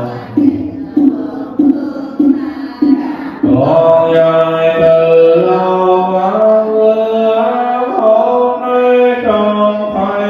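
Vietnamese Buddhist chanting. For the first three seconds or so, syllables are recited on one note in an even beat, about one every 0.6 seconds. Then the chant moves into long held notes that step up and down in pitch.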